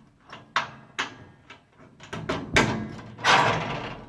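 A steel gun cabinet's newly fitted tubular cam lock being tried with its key. A few sharp clicks come in the first half, then the sheet-metal door moves and rattles loudly in the second half.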